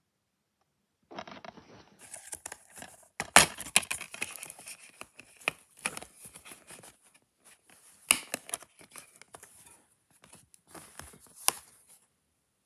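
Clear plastic DVD keep case handled and opened: rustling and scraping, with three sharp plastic clicks as the case and the disc inside are moved about.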